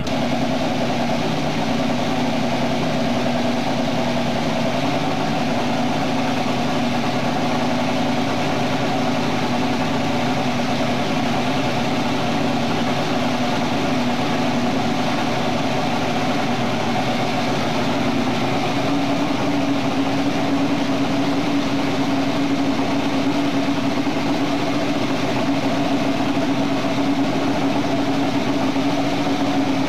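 Turbocharged racing drag boat engine idling steadily in the pits. Its pitch steps up slightly about two-thirds of the way through.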